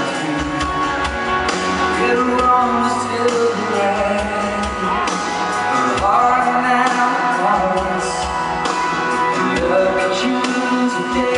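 Live country-rock band playing, with a steady drum beat under sustained and sliding pitched instrument lines.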